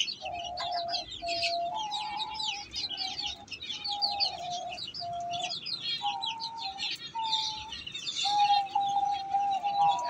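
A flock of young chicks cheeping rapidly and without a break, crowding and pecking around a person's feet while hungry. A lower steady tone sounds on and off beneath them, shifting between a few pitches.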